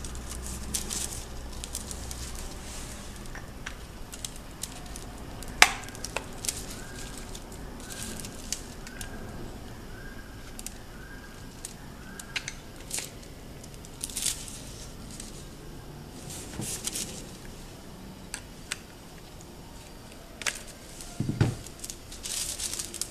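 A roll of metallic hot-stamping foil being handled and fitted onto its spindle by hand: the foil crinkles and crackles, with scattered clicks and knocks from the plastic flange and metal spindle. There is a sharp click about six seconds in and a heavier knock near the end.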